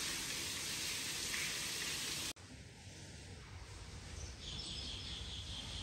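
Steady hissing background noise that stops abruptly about two seconds in, giving way to quieter room tone with a faint, steady high-pitched whine from about four seconds in.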